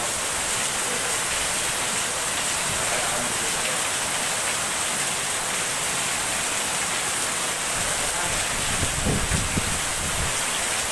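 Heavy rain falling steadily, a dense even hiss of water on the ground and leaves. About nine seconds in there is a brief low rumble.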